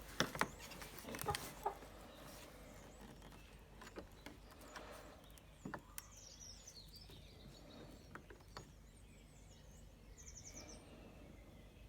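Faint ambience: a few light clicks and knocks of handling, and a small bird giving two short, high, twittering calls of rapid repeated notes.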